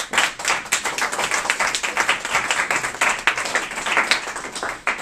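A small classroom audience applauding: many hands clapping together, easing off near the end.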